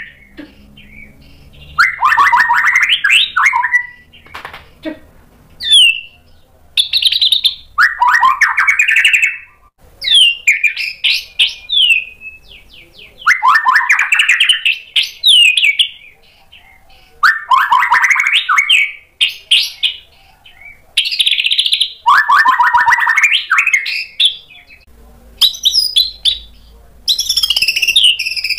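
Caged white-rumped shama (murai batu) singing loudly in its varied, learned repertoire (isian): phrases of fast, sweeping notes a second or two long, every few seconds with short pauses between. Near the end a higher, unbroken run of notes.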